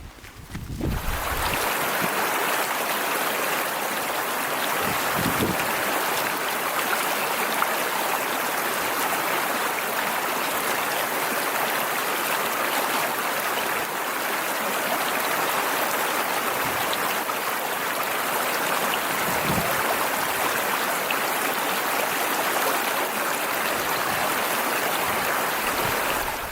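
Rushing mountain creek: a steady, loud rush of whitewater that comes in about a second in.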